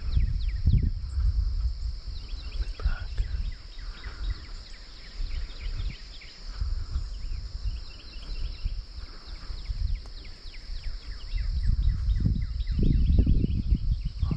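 Wind buffeting the microphone in gusts, strongest at the start and again near the end, over a steady high-pitched hum and scattered short chirps of insects and birds.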